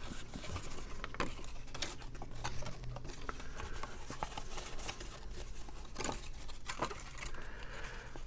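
Paper cardstock pieces being handled and fitted together by hand: scattered light taps, clicks and rustles of paper.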